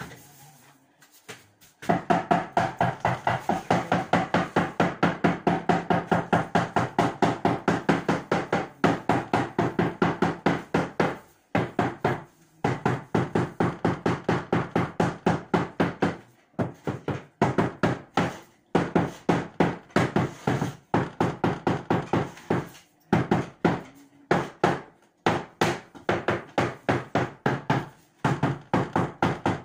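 Rapid rhythmic strokes of a hand tool worked against a bathroom ceiling, about four a second, starting about two seconds in and broken by a few short pauses.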